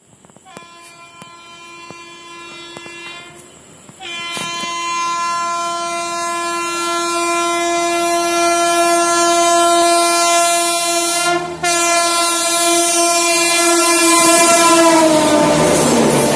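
Howrah Rajdhani Express running through a station at speed, its locomotive horn sounding in long blasts that grow louder as it approaches. The horn breaks off briefly after about three seconds and again for a moment past halfway. Near the end the horn's pitch drops as the locomotive passes, and the rushing noise of the coaches speeding by takes over.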